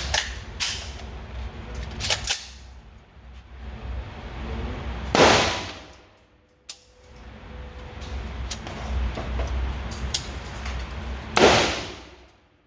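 Two loud gunshots about six seconds apart, each ringing out briefly, with fainter sharp cracks and clicks before them.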